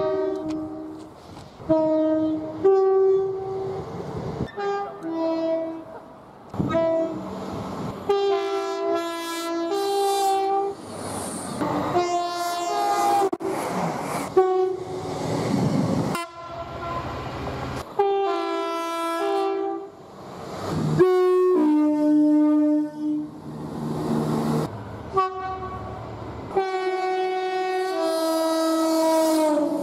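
A rapid series of two-tone train horns, each blast stepping between a high and a low note, from one train after another with abrupt cuts between them. Between the blasts come the rush and wheel clatter of trains passing.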